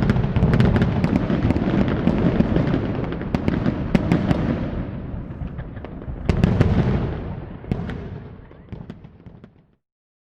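A sound effect of a deep rumble packed with many sharp cracks and pops. A fresh loud burst comes about six seconds in, then the sound fades and cuts off shortly before the end.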